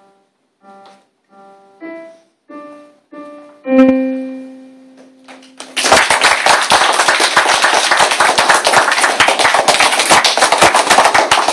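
Electronic keyboard playing a few separate chords and ending on a held low note that fades, then about six seconds in an audience of children breaks into applause, the loudest part.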